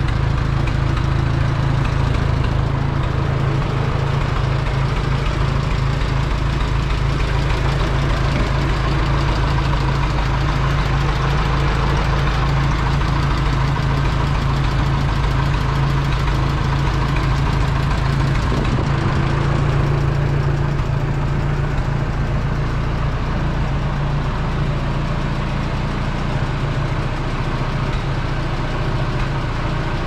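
Oliver Super 44 tractor's four-cylinder flathead gasoline engine idling steadily.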